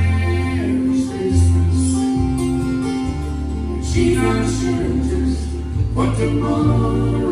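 A bluegrass string band playing live: acoustic guitars strumming over walking upright-bass notes, with fiddle and singing.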